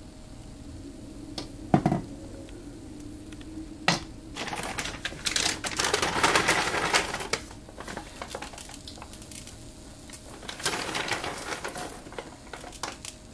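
Waffle batter crackling and sizzling inside a closed Nostalgia MyMini waffle maker, louder in two spells, one around the middle and one near the end. A few sharp clicks come in the first few seconds.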